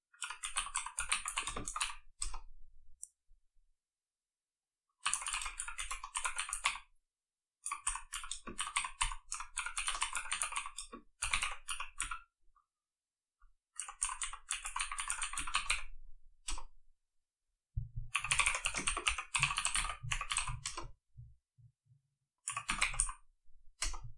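Typing on a computer keyboard in six quick bursts of rapid key clicks, with pauses of one to two seconds of silence between them.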